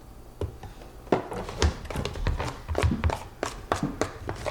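Irregular clicks and taps of a stirrer against small plastic containers as slime is mixed, starting about half a second in and coming quickly and unevenly.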